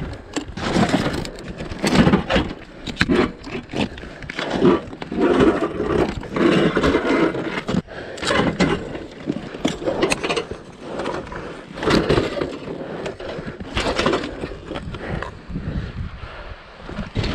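Irregular scraping, crunching and knocking of boots, riding gear and loose rock as a rider moves about on a rocky trail beside a fallen adventure motorcycle.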